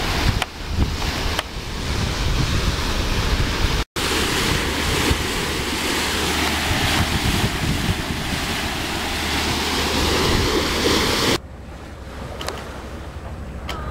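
Wind buffeting the microphone over water rushing and splashing along a sailing ship's hull. It breaks off for an instant about four seconds in and drops suddenly to a quieter wash near the end.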